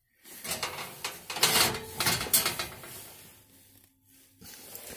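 Close-up knocks, clicks and scraping, mostly in the first half, as a hand grips and works the control knob of an RV propane oven.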